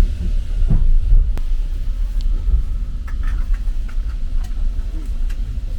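Steady low rumble of a passenger train running, heard from inside a sleeping carriage, with a few faint clicks over it.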